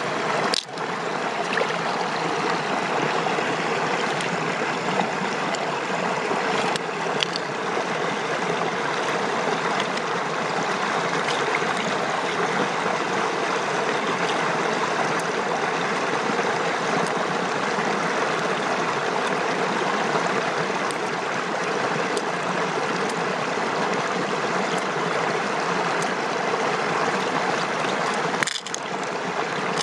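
Steady rush of running water, with a few faint clicks; it drops out briefly about half a second in and again near the end.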